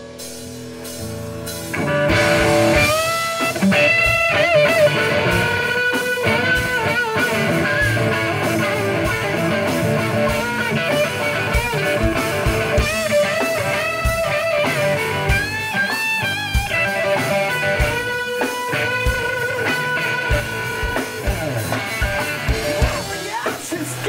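Live rock band playing an instrumental passage on electric guitars, bass and drum kit. A quieter held chord gives way about two seconds in to the full band, with a lead guitar bending notes over steady drum hits.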